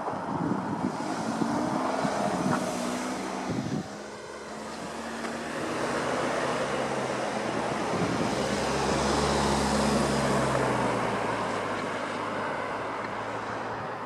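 Vehicles passing over a level crossing: one passes and cuts off about four seconds in, then a heavier rumble with a low hum swells up, is loudest about ten seconds in, and slowly eases.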